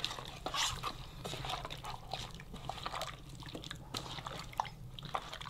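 Rabbit pieces being mixed in a thick tomato-paste and onion marinade: irregular wet squishes and smacks.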